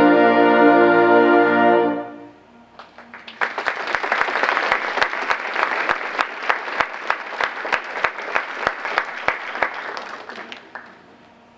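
Symphonic band holding a final chord that cuts off about two seconds in, followed by audience applause that fades out near the end.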